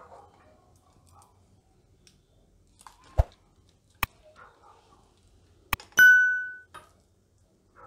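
Subscribe-button animation sound effects: a soft thump, then two sharp mouse clicks, the second followed at once by a single bright bell ding that rings out for about half a second and is the loudest sound.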